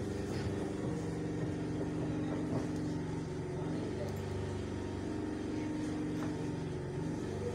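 A steady low machine hum, with faint scrapes and light ticks of a spoon folding flour into cake batter in a glass bowl.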